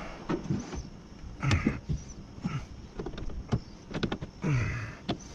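Knocks, clicks and scraping of a window regulator track and glass being worked into position inside a car door, with two louder scrapes about a second and a half in and near the end.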